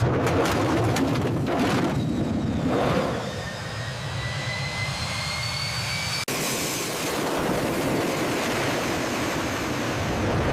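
F-14A Tomcat jet engines running at high power in flight, a steady rush of jet noise. A rising whine sounds in the middle, then the sound cuts abruptly about six seconds in to a broader, steadier rush.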